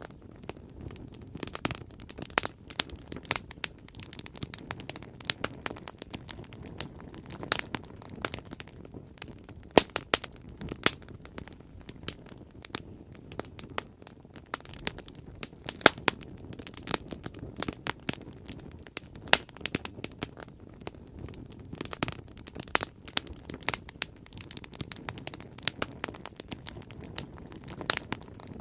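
Bonfire burning with irregular sharp crackles and pops over a steady low rumble of the flames.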